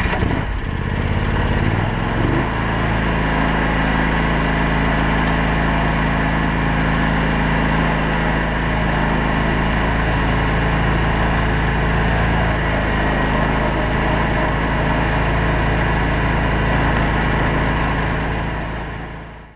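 John Deere X500 lawn tractor's V-twin engine starting up, running unevenly for a couple of seconds, then settling into a steady run as the tractor drives off. The sound fades out near the end.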